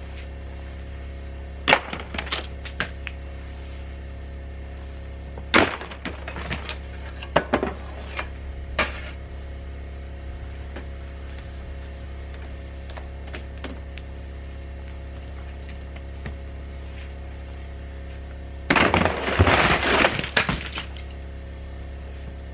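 Ice being broken off a metal roof: four sharp cracks with brief clattering trails in the first nine seconds, then a longer crash of breaking ice about two seconds long near the end. A steady low hum runs underneath.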